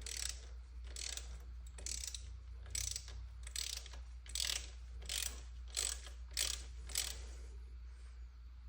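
Hand ratchet clicking through a dozen or so back-and-forth strokes while running a T30 Torx bolt down on an EGR cooler block-off plate, stopping about seven seconds in.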